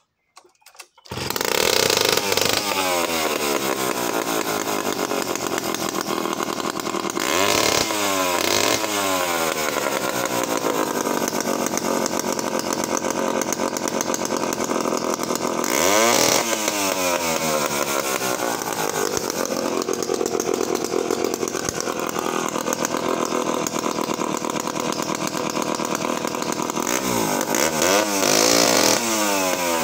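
A 1958 Danarm DD8F Mark II chainsaw's 98 cc single-cylinder two-stroke engine catches about a second in and runs. It is revved up and let back down several times.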